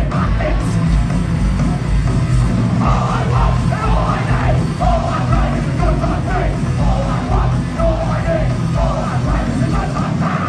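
Punk rock band playing live, with electric guitar, bass guitar and drums, heard from among the crowd through a phone microphone. Shouted vocals come in about three seconds in.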